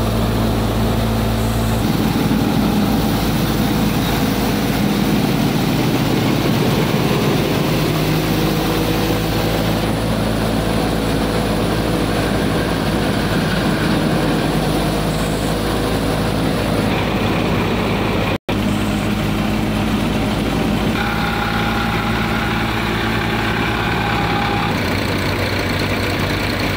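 Tractor-driven multicrop thresher running steadily while threshing wheat: a dense, loud machine din over a steady engine hum. The sound cuts out for an instant about two-thirds of the way through.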